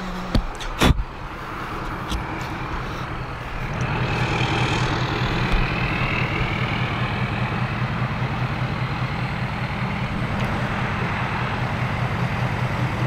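Ford Super Duty pickup's engine idling close by, a steady, evenly pulsing low sound that comes up about four seconds in. A few sharp knocks in the first second, from the camera being handled.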